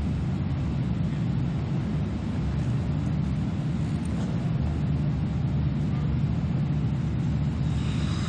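Steady low rumble of an ice arena's room noise, the hum of its air handling, with no clear events in it. Near the end, faint high tones begin to come in.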